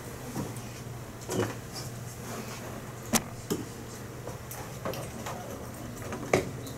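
Room tone with a steady low hum, broken by a few sharp clicks and knocks of things being handled. The loudest knocks come about three seconds in and just over six seconds in.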